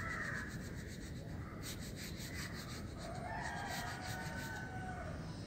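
Crayon rubbing on drawing paper in short back-and-forth colouring strokes, with a quick, even run of strokes about two seconds in.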